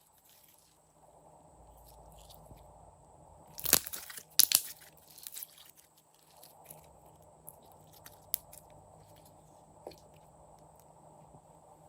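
Clear slime being handled and mixed, with a burst of crackling clicks and pops about four seconds in and scattered single clicks after.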